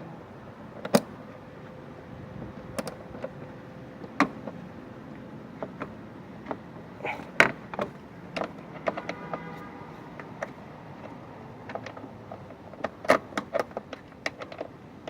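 Irregular sharp metallic clinks and knocks of hand tools and engine parts being handled during a timing belt replacement, a dozen or so scattered strikes with a faint steady hum beneath.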